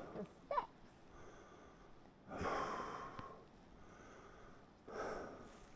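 A person breathing, with slow audible breaths about two and a half seconds apart; the one around the middle is the loudest.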